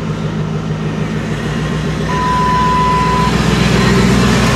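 2007 Dodge Ram 1500's 5.7-litre Hemi V8 running with the transmission in drive and four-wheel drive selected; the engine sound grows louder about two seconds in. A steady beep-like tone sounds for about a second in the middle.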